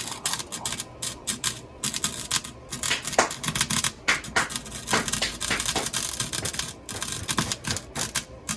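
A cheap arc welder crackling and spitting, in irregular stop-start runs with short pauses between them.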